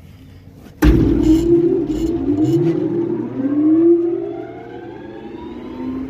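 A large electric grain-bin fan starting up: a loud clunk as it is switched on about a second in, then a whine that climbs steadily in pitch as the motor and fan spin up to speed.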